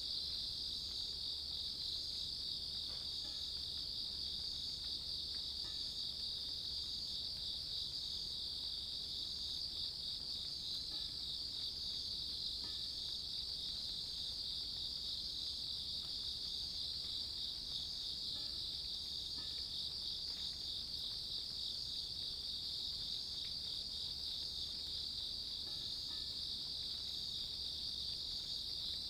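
Grass insects, crickets among them, trilling in a steady, unbroken high chorus. A fainter call above it repeats a little more than once a second.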